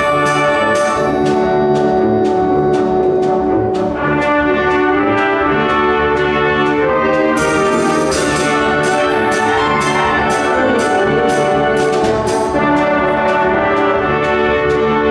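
Middle school concert band playing a loud, rhythmic passage, brass and woodwinds together over regular percussion strikes.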